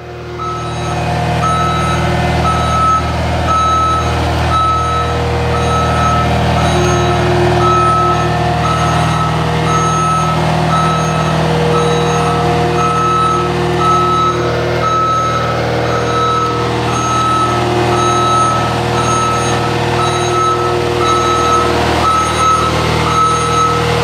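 Caterpillar skid steer reversing, its diesel engine running steadily under a backup alarm that beeps evenly about once a second.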